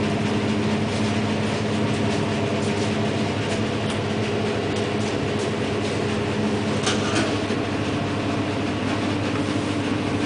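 Blower door fan running steadily, a constant drone with a steady hum, holding the building under pressure for an air-leak test. A brief sharp tap about seven seconds in.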